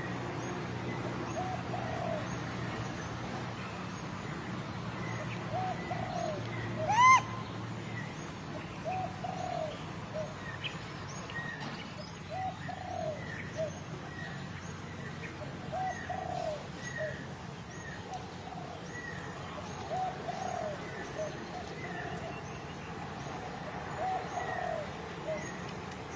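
Birds calling: many short, repeated cooing notes throughout, with one louder call rising in pitch about seven seconds in. A low hum underneath stops about eight seconds in.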